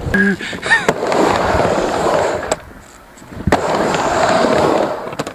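Skateboard rolling across a ramp in two runs, its wheels making a steady rolling noise, with sharp clacks of the board between and after the runs.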